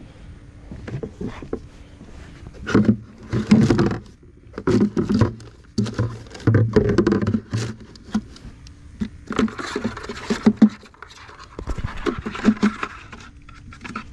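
Footsteps on deck boards and handling noise: irregular knocks, rustles and scrapes as a blue crab is carried in metal crab tongs and lowered into a plastic cooler.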